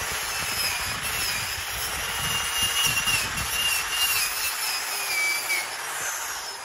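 Wire wheel brush on an angle grinder running against rusty sheet-steel bulkhead, scrubbing rust and paint off the metal, with a wavering whine over the scratching. It fades near the end as the brush comes away.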